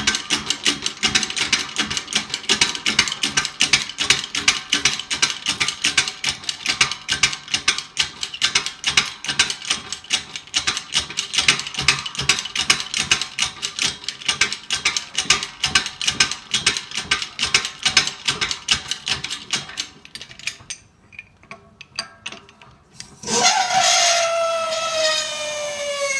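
Keyway broach being forced through a pulley's bore by a hand-pumped hydraulic press, with a rapid, even ticking for about twenty seconds. After a brief lull comes a sudden loud whine that falls in pitch near the end.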